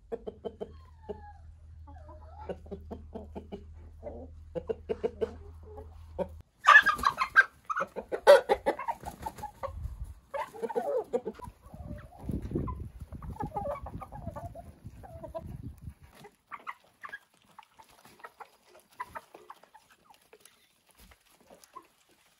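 Domestic chickens, hens and roosters, clucking in quick short calls, with a sudden loud outburst about six and a half seconds in; the calling thins to scattered faint clucks for the last few seconds.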